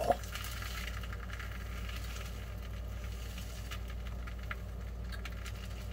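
Plastic spoon stirring and scraping stew that is boiling in a foil ration tray, with faint bubbling ticks over a steady low hum.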